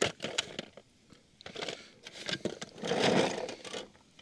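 Carrots tipped from a glass dish into a cast-iron camp Dutch oven full of vegetables: scattered clicks and scrapes, then a rush of carrots tumbling in about three seconds in.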